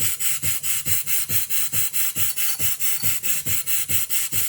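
Half-horsepower Sipp steam engine running at a steady beat of about five chuffs a second, driving an antique Merrow drill bit sharpener under light load.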